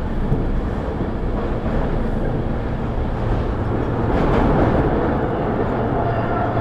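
An MS61 electric multiple unit on RER A running along the line: a steady rumble with a low hum. The noise swells about four seconds in, and a steady whine comes in near the end.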